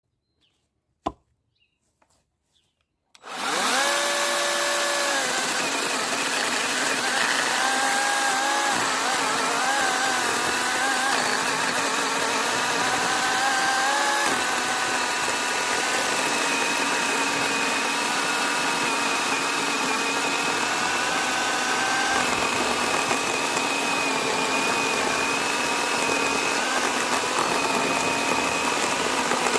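Chainsaw running steadily with a whine, starting abruptly about three seconds in after a single click.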